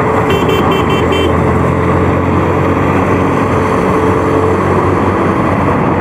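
Steady wind rush and road noise of a motorcycle at about 70–80 km/h on a highway, with the engine hum underneath, picked up by a handsfree helmet's built-in microphone. About half a second in, a run of five quick high beeps.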